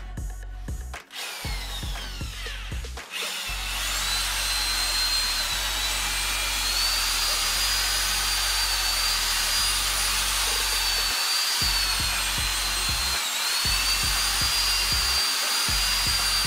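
Electric drill spinning a homemade stirrer, an old saw blade on a threaded rod, through shredded cardboard and paper soaking in a bucket to mix briquette pulp. It runs stop-start at first, then steadily from about three and a half seconds in, with a high motor whine that sags briefly a few times.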